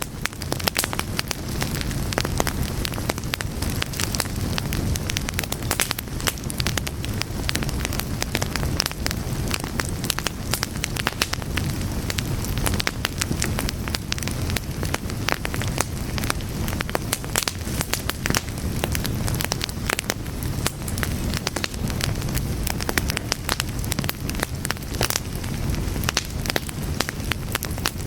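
Fire burning, a steady low rumble with frequent sharp crackles and pops.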